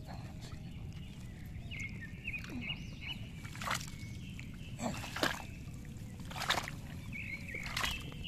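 A hand sloshing and probing in shallow muddy paddy water and mud, with several splashes in the second half.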